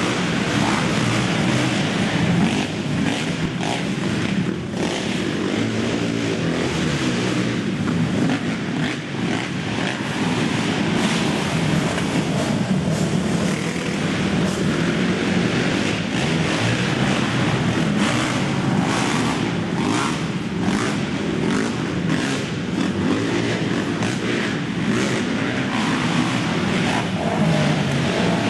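Several racing quad (ATV) engines running hard at once, a dense, steady engine din with no let-up.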